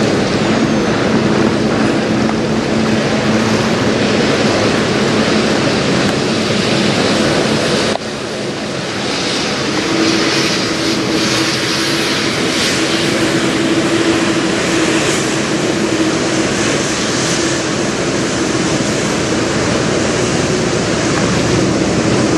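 Steady low drone of a passing Great Lakes freighter's engines, heard over a constant wash of river water and wind noise. About eight seconds in the sound briefly drops and changes, and the hum then carries on at a slightly higher pitch.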